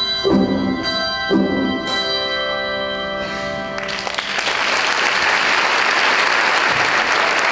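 Handbell choir striking two final chords about a second apart, the bells ringing on and then cut off together about four seconds in. The audience then applauds.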